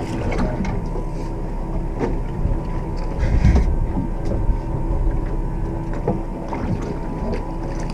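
Steady hum and low rumble of a fishing boat sitting on the water, with water sloshing against the hull and a few short knocks on deck.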